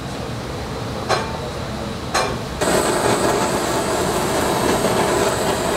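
Two sharp clicks, then a hand-held butane blowtorch flame comes on about two and a half seconds in and keeps up a loud, steady hiss as it toasts cut gem lettuce.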